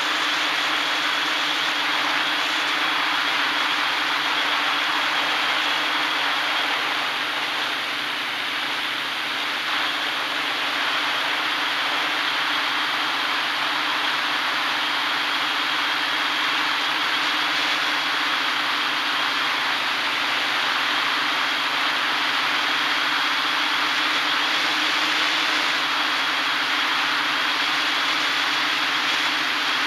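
Hexacopter's brushless motors and propellers running steadily in flight, heard from a camera mounted on the airframe: an even rushing hiss with a steady high whine held throughout.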